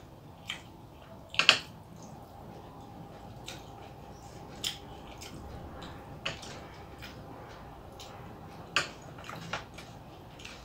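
Eating by hand: fingers mixing rice and food on a metal plate, with scattered soft wet clicks and smacks of eating, the loudest about one and a half seconds in.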